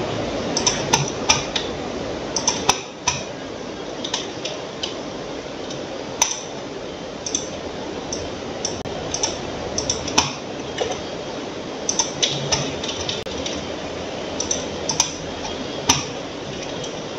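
Computer mouse clicking at irregular intervals, the clicks often coming in quick pairs, over a steady background hiss.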